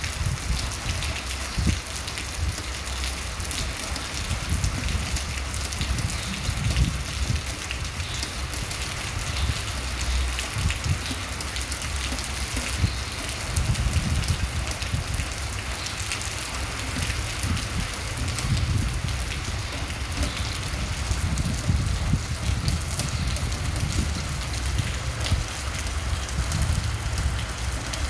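Steady rain falling, with many individual drops ticking on a surface, over a low, gusting rumble of mild wind.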